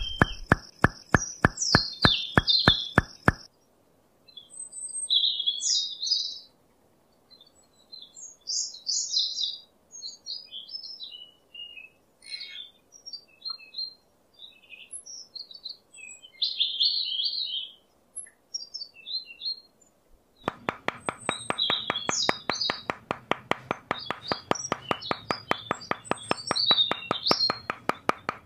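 Birds chirping and twittering in short high phrases, with a steady rhythmic ticking beat at the start and again from about two-thirds of the way through.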